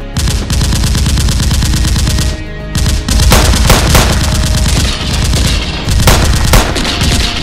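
Gunfire in a shootout: many shots in quick succession, with a brief lull about two and a half seconds in before the shooting picks up again.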